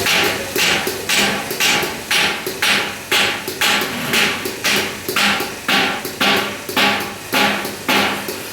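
Hammer striking metal strip in a steady rhythm, about two blows a second, each blow ringing briefly.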